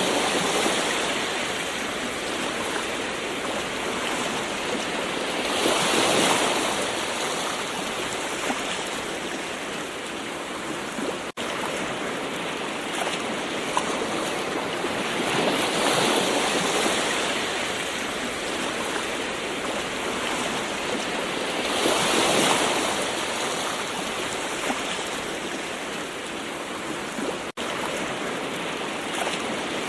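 Gentle ocean waves washing in: a steady hiss of surf that swells and fades every several seconds. There are two split-second gaps.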